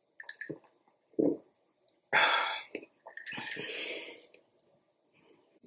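Two swallowing gulps from a glass of iced juice, then two loud breathy exhales, the second longer.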